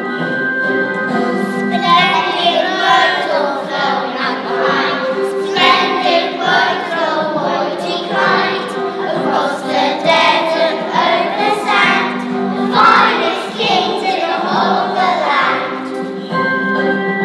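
A group of young children singing a song together over a steady instrumental accompaniment. The singing comes in about two seconds in and stops shortly before the end, leaving the accompaniment playing.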